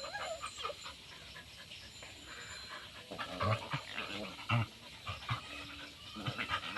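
A dog panting, with a few short low thumps a little past halfway.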